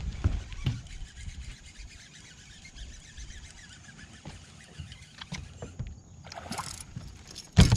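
Wind buffeting the microphone and water lapping at the hull of a fishing boat, with a single loud knock near the end.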